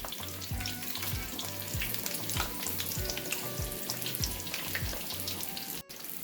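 Breaded jalapeño poppers deep-frying in hot oil, a steady crackling sizzle as they near the end of cooking. Background music with a steady beat plays under it.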